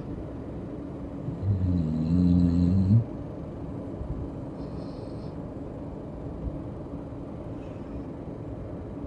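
A sleeping pet snoring: one long, low, rattling snore starting about a second and a half in and cutting off sharply about a second and a half later, over a steady low hum.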